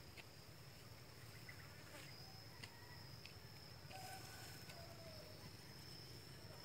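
Near-silent outdoor ambience: a faint, steady, high-pitched insect trill, with a couple of faint short bird calls about four seconds in.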